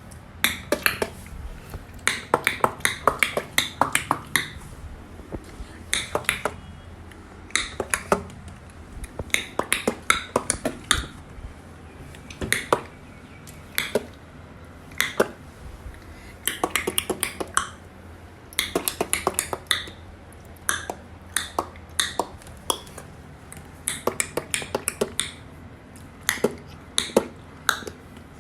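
A person making sharp clicking noises with their mouth to draw cats' attention, in quick runs of several clicks with short pauses between.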